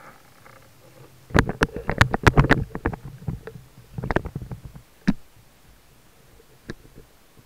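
Sharp clicks and knocks heard underwater: a dense cluster starting about a second in and lasting under two seconds, then a few single knocks spaced a second or so apart.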